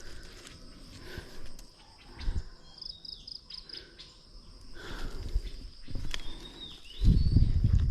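Steady high insect drone with short bird chirps and a few falling whistled notes over it. Dull low rumbles sound at intervals, the loudest and longest near the end.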